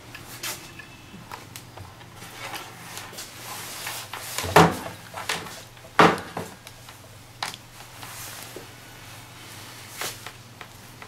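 Scattered knocks and clicks of handling: a digital multimeter and its test leads being moved and set down on a wooden tabletop, with two louder knocks around the middle. A faint steady low hum runs underneath.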